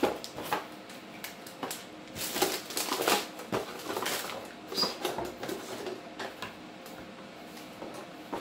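Crinkling of a silver anti-static bag and light knocks and scrapes of a cardboard box being handled, in irregular bursts, busiest about two to three seconds in.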